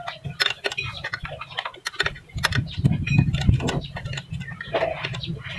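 Irregular clicks and light knocks of hands working a plastic radiator fan blade loose at its hub. A low rumble runs underneath from about two seconds in.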